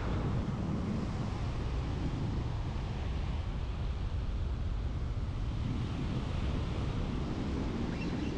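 Strong wind buffeting the microphone, a steady low rumble, with surf washing on the beach beneath it.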